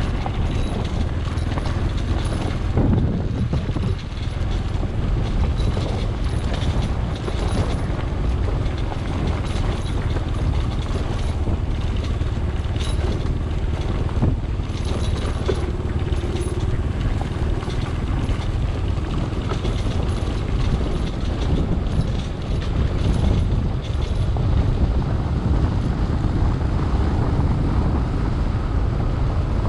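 A vehicle driving on a rough dirt track: a steady low rumble of engine and road noise, with scattered knocks and rattles from the bumps.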